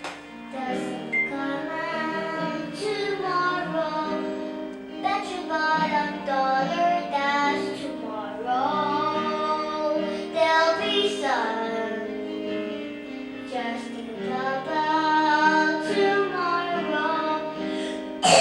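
Music: a high voice singing a melody over held instrumental accompaniment.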